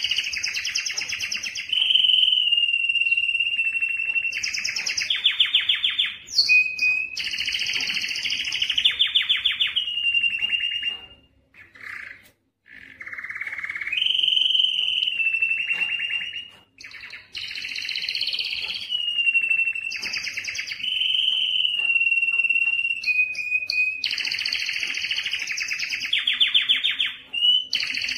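Male canary singing its excited breeding-season song: fast rolling trills alternating with clear held whistled notes, with a brief pause about eleven seconds in.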